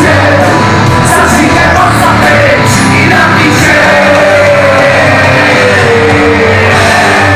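Live punk rock band playing loud: electric guitars, bass and drums with a male lead singer, heard from within the crowd.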